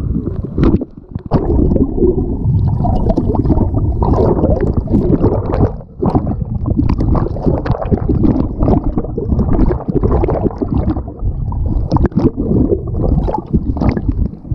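Water sloshing and bubbling around a camera dipped below the surface, heard muffled and bassy through the submerged microphone, with brief lulls about a second in and near the middle.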